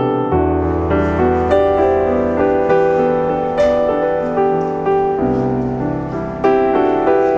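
Background piano music: a slow melody of evenly paced notes, each struck and left to fade.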